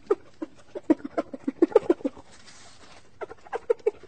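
Cartoon hyenas cackling with voice-acted laughter: rapid short yelps, about six a second. It breaks off about two seconds in and starts again a second later.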